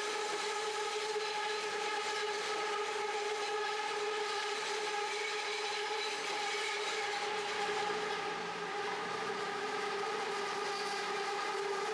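BTS Skytrain train taking one of the network's sharpest curves on the elevated track, its wheels running against the guide rail that holds them on the curve and keeps the train from tipping. This gives a steady squealing whine of several tones.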